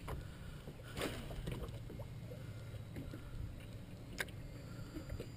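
Low rumble of water and wind around a small fishing boat, with two brief sharp sounds, one about a second in and one about four seconds in.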